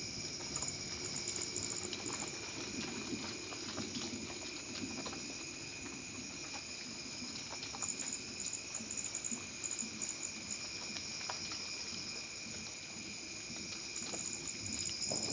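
Light rain pattering, with scattered single drips ticking through it and a steady high chirping of insects that comes and goes in spells. A loud thunderclap breaks in at the very end.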